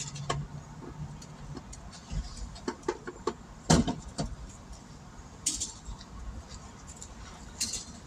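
Irregular metallic clinks and knocks from tire-changing tools being worked at a car's wheel, with the loudest knock a little under four seconds in.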